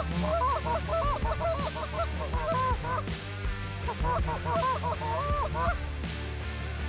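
Geese honking in two quick runs of short arched honks and clucks, with a short pause about three seconds in.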